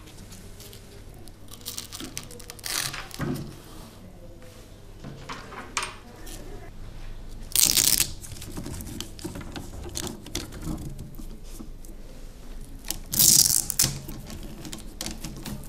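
Hook-and-loop straps on a wrist CPM device's supports being ripped open, three times about five seconds apart, with lighter clicks and rustling from handling the plastic attachments between the rips.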